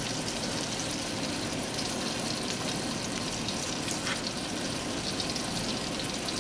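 Flour-dredged chicken thighs searing in hot oil in a Dutch oven: a steady sizzle.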